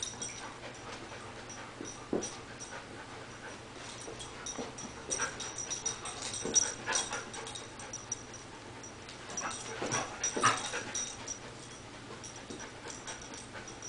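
A golden retriever's soft play noises, breathy huffs and whines, as it bounces around a cat. They come in two spells, about five to seven seconds in and again around ten seconds.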